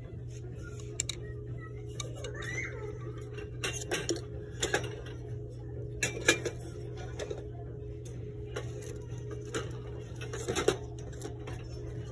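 Shop-floor ambience: a steady low hum with scattered sharp clinks and knocks, like hard goods or metal fittings being handled, loudest around the middle and near the end.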